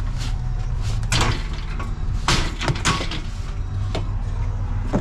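Metal ironing board clanking and rattling as it is handled and loaded as scrap, several sharp knocks a second or so apart. A steady low engine hum runs underneath.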